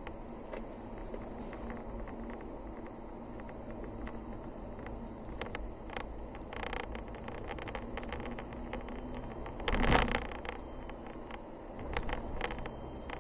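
Car driving on a paved mountain road: steady engine and tyre noise with scattered small clicks and rattles, a loud thump about ten seconds in, and a few more knocks about two seconds later.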